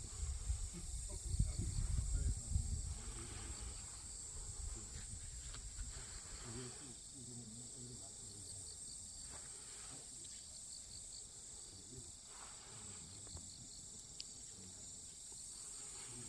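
A steady, high-pitched chorus of insects, with small pulsing chirps repeating through it. A low rumble sits under it for the first few seconds.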